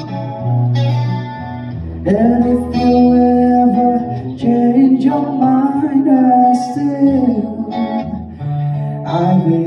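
Slow pop love ballad with guitar accompaniment and a bass line; a melodic line bends and slides in pitch through the middle.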